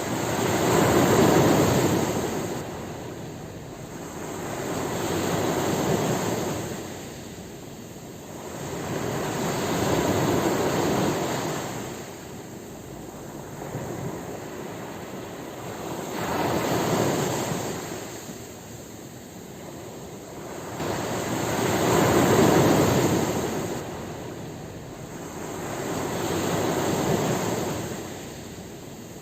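Ocean waves breaking and washing up on a shore, each wave swelling and fading about every five seconds, about six times.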